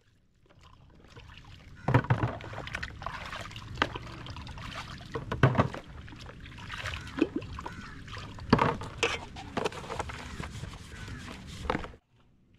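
Water being poured and splashed, with several sharp knocks scattered through it.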